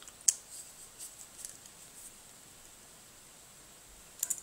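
Light handling clicks of a metal-shelled electrical plug being taken apart: one sharp click about a quarter second in, a few faint taps over the next couple of seconds, then a short run of quick clicks near the end.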